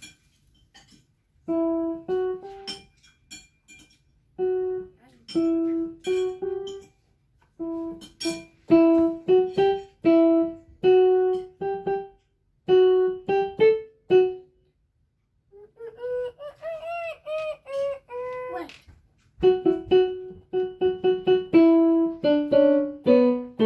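Kawai digital piano played by a beginner child, one note at a time, in short halting phrases of a simple melody with pauses between them, ending on a few falling notes.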